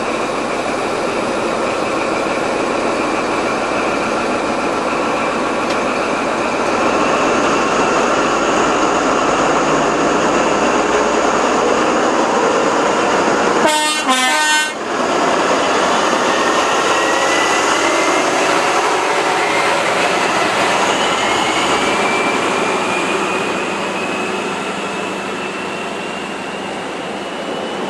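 Class 43 HST diesel power car pulling away and passing close by, its engine running loud and steady, with a thin whine rising slowly in pitch through the second half as it gathers speed. The sound drops out briefly about halfway through.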